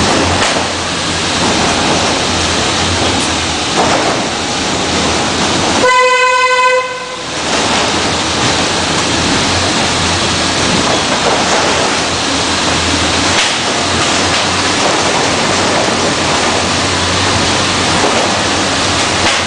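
Steady rushing noise like wind on the microphone during travel. About six seconds in it is broken by a single steady horn-like tone that lasts a little over a second.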